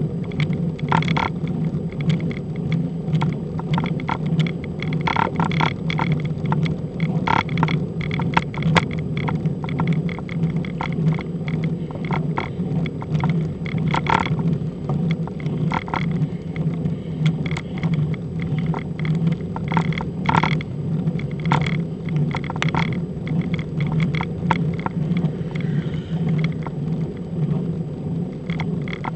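Road bicycle ridden on tarmac: a steady low rumble with many short clicks and rattles scattered throughout.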